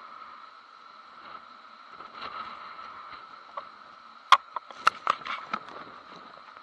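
Hurricane wind heard muffled through an action camera's waterproof housing, a steady dull noise. Between about four and five and a half seconds in, a quick run of sharp knocks and taps on the housing is the loudest sound.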